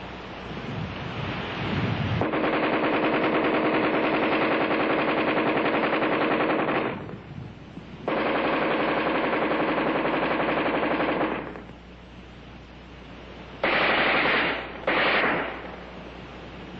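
ArmaLite AR-10 rifle firing full-automatic: two long sustained bursts, then two short bursts close together near the end.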